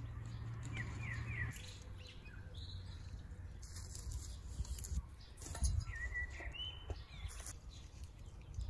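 Small birds chirping and whistling short calls in woodland, over rustling and a few knocks as dry sticks are pushed into a wood stove.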